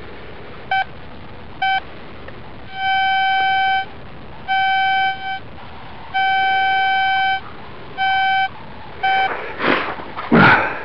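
Metal detector signalling a buried metal target: one steady beeping tone, first three short beeps, then five longer tones of up to about a second and a half each. Near the end come two brief rustling scrapes.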